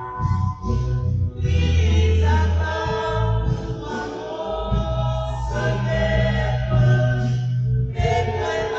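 Music with choral singing: sustained voices over long held bass notes.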